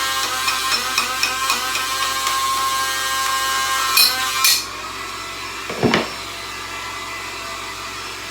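Small high-speed rotary tool with a thin cut-off wheel whining as it cuts into a plastic hair dryer, with rapid clicks and snaps from the wheel. It stops about four and a half seconds in, leaving a quieter steady hum with one short falling sweep near the middle.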